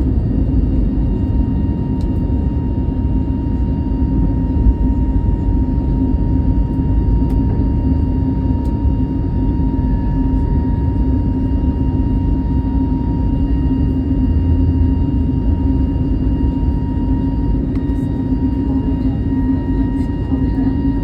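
Steady cabin noise of an Airbus A320neo: the low rumble of the engines and airframe, with a thin, steady whine above it.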